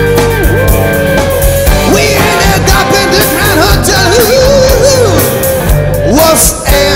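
Live hard-rock band playing, with electric guitars, bass guitar, drum kit and keyboards; a man's singing voice comes in over the band about two seconds in.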